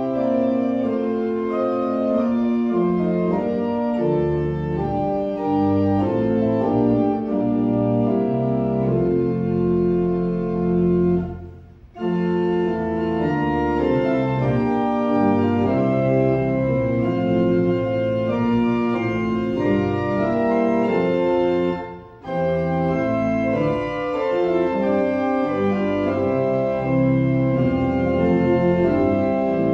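Church organ playing a hymn-tune prelude in sustained, held chords, with short breaks between phrases about 11 and 22 seconds in.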